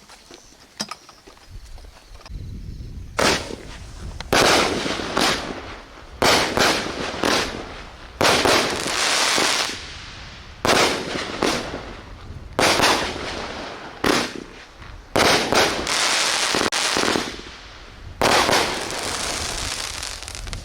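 Fisherman 'Top Dawg' 18-shot, 200-gram firework cake firing its shots. After about three seconds of quiet, sharp bangs come one after another about one to two seconds apart, each trailed by a second or so of hissing noise.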